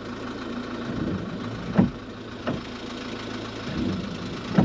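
Camper van engine idling steadily, with three sharp clicks or taps over it.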